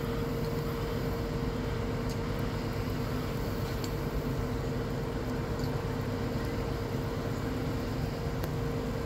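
Heavy diesel machinery running steadily: a low engine rumble with a constant mid-pitched whine on top.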